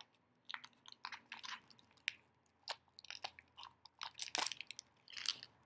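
Plastic wrapper of a Shopkins blind pack crinkling as it is opened by hand, in a string of short, irregular crackles.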